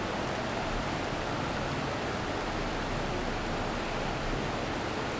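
Steady, even hiss of background noise, with no distinct sounds standing out.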